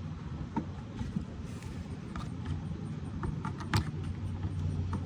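Light plastic clicks and taps from a car's rear light fitting and bumper trim clips being handled and pushed into place, over a steady low hum. The sharpest click comes a little before the end.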